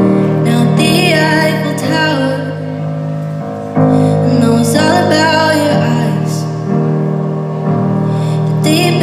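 A woman singing a slow ballad live while accompanying herself on a stage keyboard with a piano sound. Held chords are struck at the start, about four seconds in and near the end, with the voice gliding over them.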